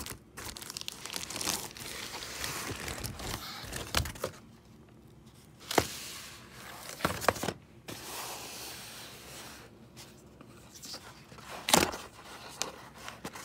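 Plastic mailer bag crinkling and rustling as a cardboard box is handled and pulled out of it, with several sharp knocks from the box along the way.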